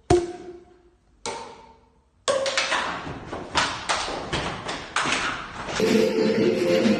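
Single resonant drum strikes about a second apart, each ringing briefly, then from about two seconds in a fast run of beats; near the end a held pitched instrument joins in and it becomes music.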